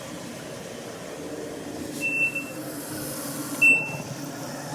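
Two short, high electronic beeps about a second and a half apart, the second louder, over the steady hum of a washing machine running and filling with water.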